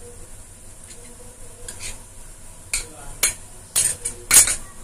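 A spoon scraping and clinking against a bowl as a wet herb and spice paste is scraped out into a steel mesh strainer. Several sharp clinks come in the second half, the loudest near the end.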